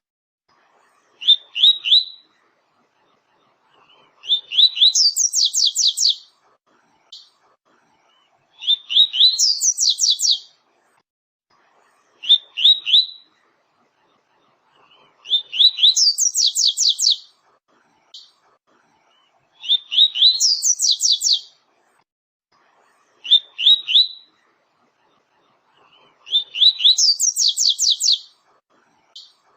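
Double-collared seedeater (coleiro) singing its 'tui-tui' song: a short phrase of a few quick upswept whistles alternates with a longer phrase that climbs into a fast high trill. The song repeats about every three to four seconds, with clean silence between phrases.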